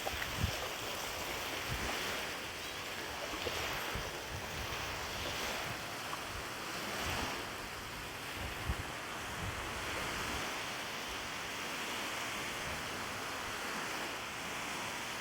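Wind with small waves washing against a lake shore, swelling and easing every second or two, and gusts buffeting the microphone with low rumbles now and then.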